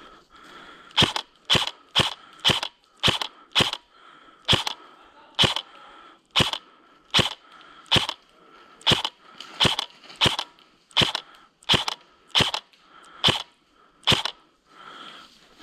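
Airsoft M4A1 replica fired on semi-automatic: about nineteen single sharp cracks, one to two a second, from about a second in until near the end.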